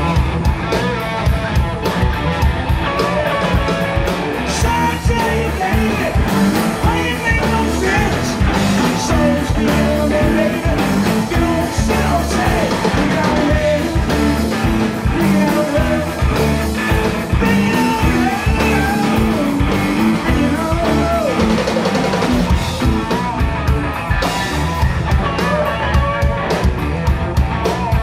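Live blues-rock band playing: electric guitars over bass guitar and a drum kit, with singing.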